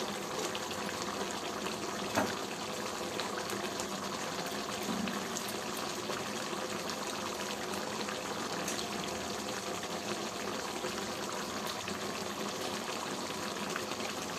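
Chicken curry gravy simmering in a kadai, a steady bubbling, with one light knock about two seconds in.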